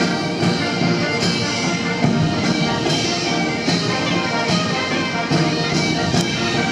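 Massed military brass band with bugles playing a march while marching, over a steady drum beat.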